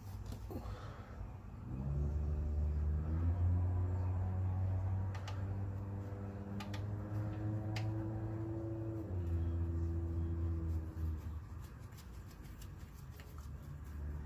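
A motor or engine hum that starts about two seconds in, rises slowly in pitch, drops back about nine seconds in and fades after eleven seconds, with a few light clicks along the way.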